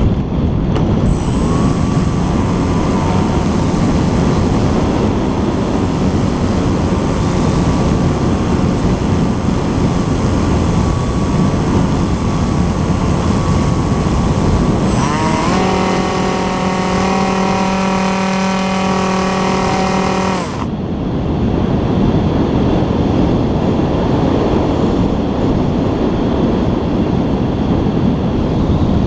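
Wind rushing over a GoPro mounted on a Bixler 2 model plane, with the whine of its electric motor and propeller. The motor winds up to a strong drone about fifteen seconds in, then cuts off about five seconds later, leaving only wind noise as the plane glides.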